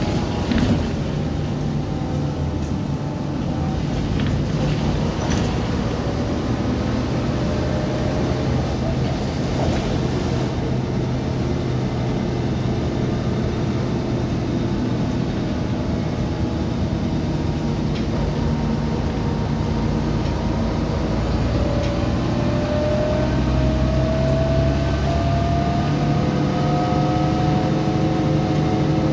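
Mercedes-Benz O405GN articulated city bus running on its diesel engine. The engine and drivetrain hum drops in pitch over the first few seconds, then holds steady. Over the last several seconds comes a rising whine as the bus speeds up. A short knock is heard just after the start.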